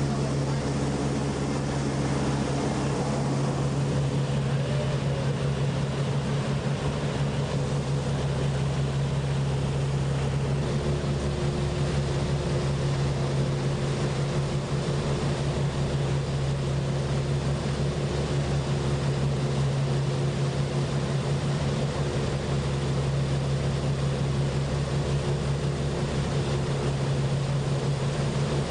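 Watercraft engine running at a constant, unchanging low drone, with a steady hiss of rushing water and wind over it.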